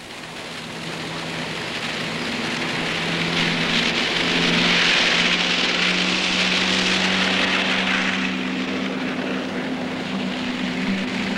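A broad rushing noise that swells to a peak about halfway through and then eases off, over low sustained notes that hold and change pitch a few times.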